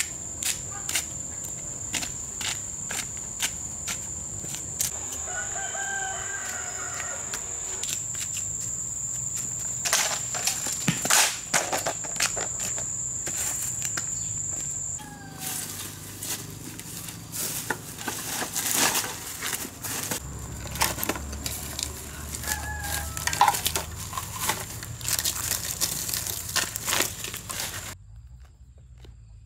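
A rooster crowing twice, over a steady high-pitched whine that stops about halfway through, with scattered clicks and rustles throughout.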